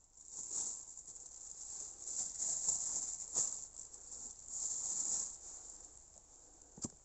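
Wet mud squelching on mud-caked Nike Air More Uptempo sneakers as the feet shift in the muck, coming in irregular swells. There is a sharp click near the end.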